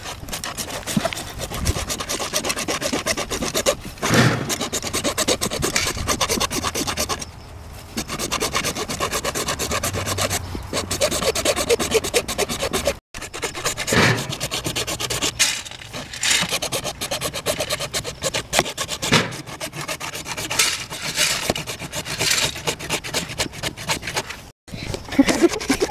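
Hacksaw cutting through 3-inch PVC plastic pipe by hand: quick back-and-forth rasping strokes, broken by a few short pauses.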